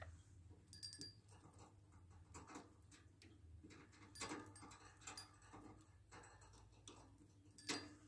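Faint metallic taps and clinks from a wire birdcage and the small bell hanging on a chain inside it, as fingers touch the bars; a few louder clinks, about a second in, midway and near the end, the first with a brief high ring.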